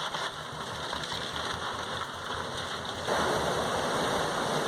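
Steady rush of fast-moving water, a dense even hiss that grows louder about three seconds in.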